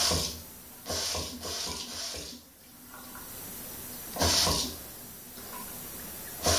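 Bidet tap turned on and off, water splashing into the ceramic bowl in short gushes of about half a second, with a longer run about a second in.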